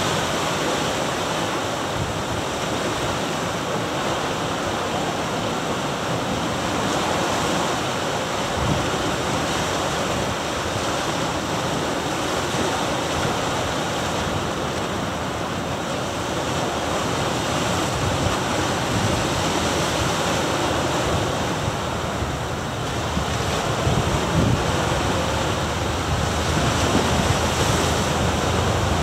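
Ocean surf washing in and breaking against the rocks of a rocky shore: a steady rush of water with occasional heavier surges. Wind buffets the microphone, with more low rumble in the last few seconds.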